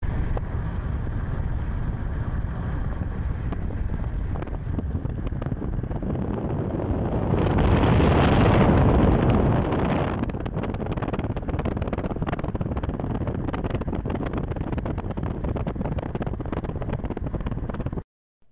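Road and wind noise of a moving car, heard from inside the cabin: a steady rush that swells louder for a couple of seconds about halfway through, then settles back.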